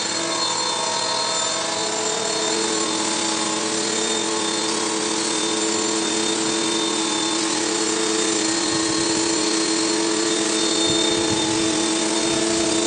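Pressure washer running: a steady motor and pump hum under the hiss of the high-pressure water jet blasting algae off the pond walls.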